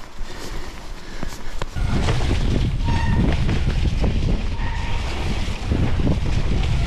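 Mountain bike riding down a wet, snow-dusted dirt trail: Vittoria knobbly tyres rumbling over the ground and the bike rattling over bumps, with wind buffeting the microphone. The rumble gets much louder about two seconds in, and two short high squeals come about a second and a half apart.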